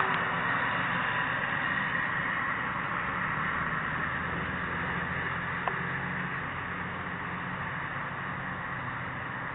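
Norfolk Southern train rolling past slowly: a steady rush of wheel and rail noise with a low hum underneath, gradually fading, and a single sharp click a little past halfway.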